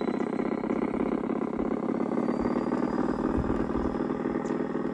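LGB side-rod diesel model locomotive and its passenger cars running on garden-railway track: a steady mechanical whir of motor and gears with rapid, even clicking of wheels and rods, and a faint whine slowly rising in pitch.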